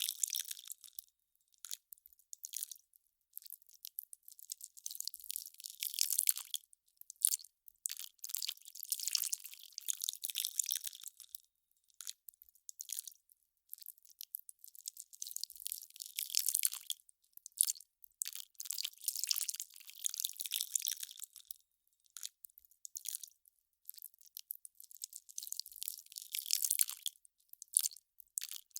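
Ice crackling and fizzing as it melts: dense clusters of sharp, high crackles that come in irregular waves a second or two long, with short quiet gaps between.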